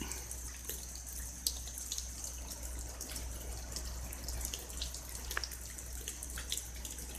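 Steady rain falling, an even hiss with scattered drips ticking through it.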